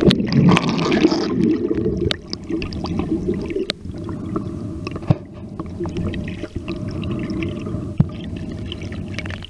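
Muffled underwater sound as heard by a submerged camera: a steady churning rumble of water moving around it, with a brief hiss in about the first second and scattered sharp clicks throughout.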